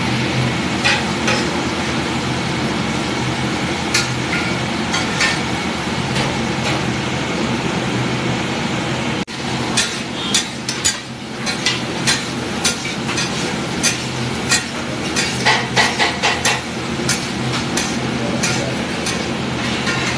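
Metal spatula scraping and clacking against a large flat iron pav bhaji tawa as chopped tomatoes and capsicum are stirred and fried in a steady sizzle. The clacks come thick and fast, most of all in the second half.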